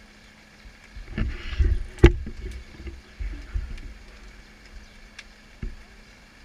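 Low rumbling and knocking on an action camera's microphone, with a sharp click about two seconds in and a lighter knock near the end.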